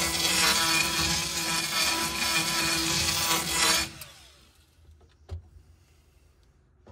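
A power tool cutting into the dash panel for a gauge, running steadily with a hissing, grinding sound, then stopping about four seconds in; a single click follows.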